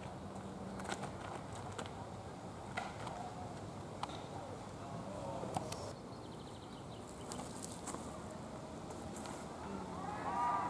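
Scattered footsteps and light clicks on a dirt path, with faint distant voices that grow a little louder near the end.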